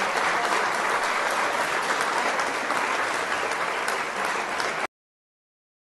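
Audience applauding, a steady patter of many hands clapping that eases off a little, then cuts off suddenly about five seconds in.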